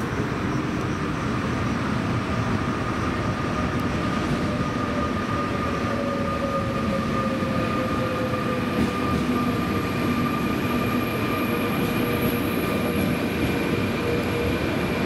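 CP series 3500 double-deck electric multiple unit arriving at the platform and running past. There is a steady rumble of wheels on rail with a motor whine, and one tone falls slowly in pitch midway as the train slows.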